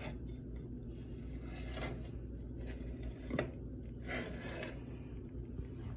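A few faint, short scrapes and rustles of handling over a low steady hum.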